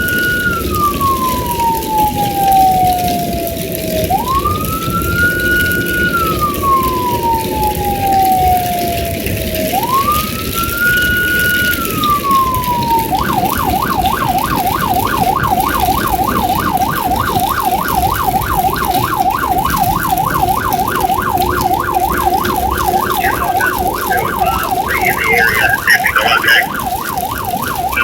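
Emergency vehicle's electronic siren sounding Code 3. It runs a slow wail, three rise-and-fall sweeps about five seconds each, then switches to a fast yelp about halfway through, over steady road and engine noise.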